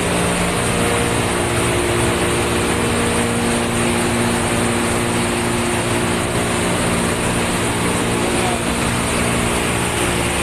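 Ship's engine-room machinery running steadily: a loud, even drone with a constant hum of several steady tones.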